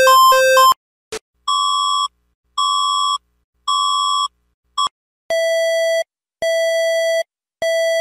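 Emergency alert tones played one after another. The rapid alternating two-tone warble of India's alert cuts off under a second in, followed by the Philippines' alert, three short even beeps like a microwave oven's, and then Indonesia's alert, three longer, lower beeps of the same kind.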